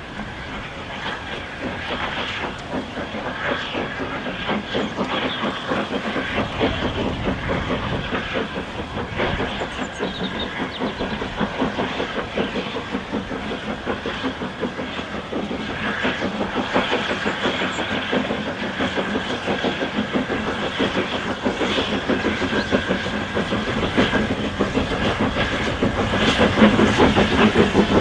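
Small steam tank locomotive hauling a train of coaches, its exhaust beating in a quick steady rhythm with wheel and rail clatter and steam hiss. The sound grows steadily louder as the train approaches.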